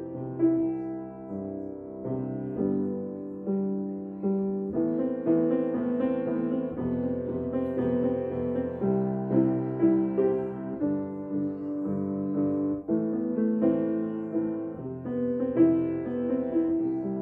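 Piano music: notes and chords struck at an unhurried pace and left to fade.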